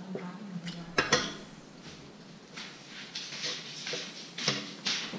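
Metal spoon clinking and scraping against a ceramic bowl during eating, with sharp clinks about a second in and again near the end.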